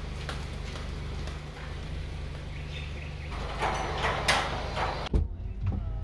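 A car engine idling steadily, with scattered clicking footsteps of sandals on a tiled floor and two louder rustling noises. About five seconds in, the sound cuts to the muffled hum heard inside the car's cabin.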